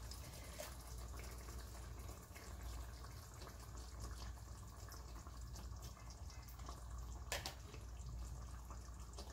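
Water poured from a ladle into a pot of chicken sauce and stirred with a wooden spoon, faint over a steady low hum, with a light knock about seven seconds in.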